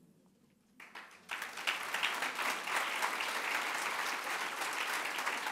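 After a brief hush, audience applause breaks out about a second in and continues as steady, dense clapping from a large crowd.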